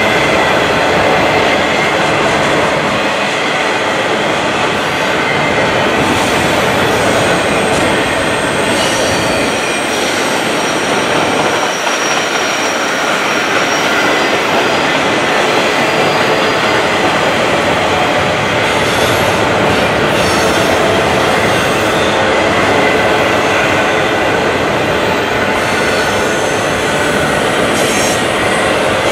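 Steel wheels of loaded double-stack container well cars rolling steadily past on the rails, a continuous dense rail noise, with faint high wheel squeals coming and going.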